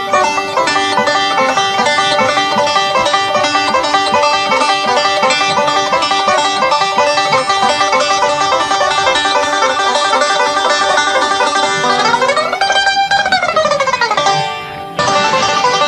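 Background music with fast, rapidly picked notes. About twelve seconds in, a note glides up and back down, and the music drops away briefly near the end before starting up again.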